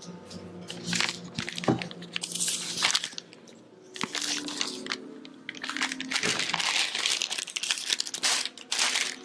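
Close crunching and crinkling noises in irregular runs, from food being eaten and its wrapping handled.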